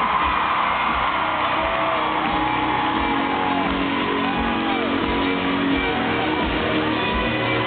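Live band playing a country-rock song with a steady kick-drum beat and held guitar and bass notes, while the arena crowd whoops and shouts over it.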